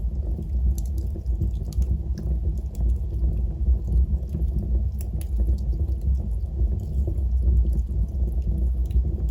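Wood fire burning in a fireplace: a steady low rumble of the flames with scattered, irregular sharp crackles and small pops from the burning wood.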